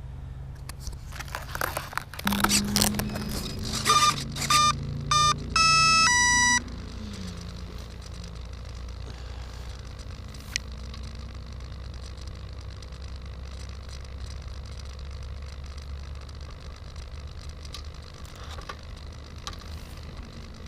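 Clicks of handling, then a series of short electronic beeps and a longer two-tone beep from a brushless motor speed controller arming as the battery is connected. A steady low hum follows.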